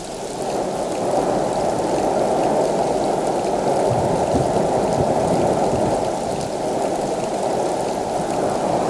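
Steady rushing noise of heavy monsoon rain and a swollen, muddy stream in spate, heard from inside a car.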